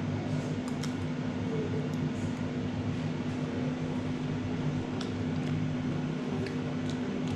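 A steady mechanical hum holding one constant low pitch, with a few faint clicks over it.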